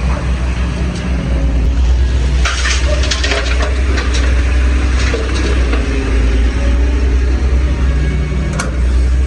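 Excavator's diesel engine running with a steady low rumble, with irregular knocks and clatter from rock at the dig.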